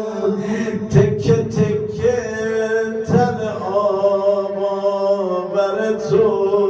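A man chanting a Shia mourning lament (maddahi) into a microphone, drawing out long wavering sung notes with no clear words, over a steady low tone that holds throughout.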